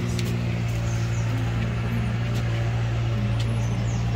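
Steady low hum of a motor running at constant speed, unchanging throughout.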